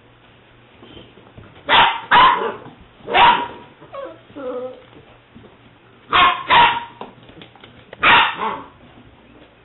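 Young English springer spaniel puppy barking: six sharp barks in two bunches, with softer, higher yips a little after the first three.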